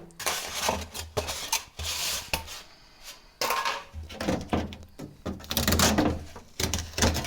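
Rubbing and scraping noises with a few light knocks, in short irregular bursts, as a new refrigerator is unwrapped and handled.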